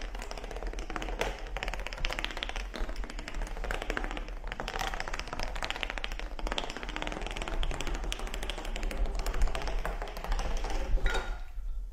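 Rapid, irregular tapping or clicking over a low steady hum.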